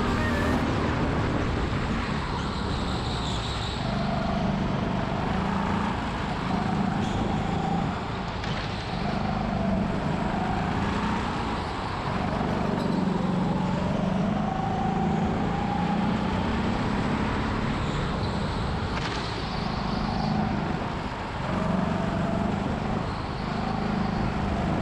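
Go-kart running flat out on an indoor track, heard from onboard: the motor's whine rises and falls in pitch as the kart accelerates out of corners and lifts into them.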